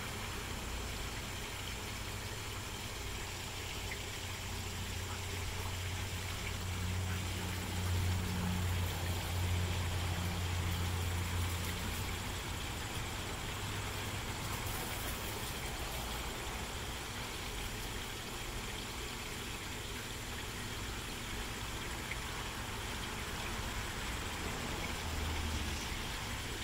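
Steady background hiss with a low hum that grows louder for several seconds near the middle, then eases off.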